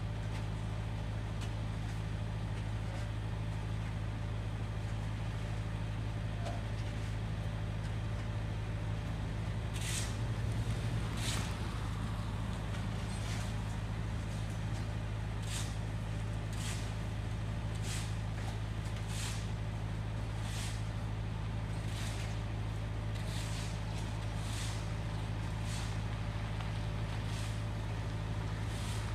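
Construction-site machinery heard from across the street: a steady, low engine drone throughout, with a car passing partway through. From about ten seconds in, a run of sharp, distant knocks comes roughly every second or two from the work on the site.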